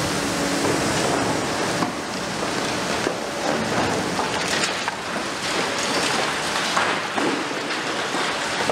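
Liebherr R 950 Demolition high-reach excavator breaking up a building: a continuous crackling and crunching of concrete and falling rubble over a steady rushing noise.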